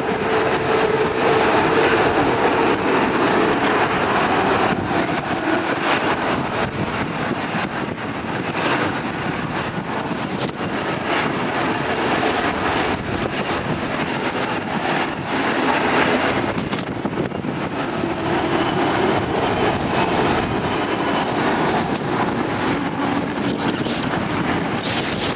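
Jet engines of Airbus A321neo airliners running at low taxi thrust, a steady rushing hum, with gusty wind buffeting the microphone.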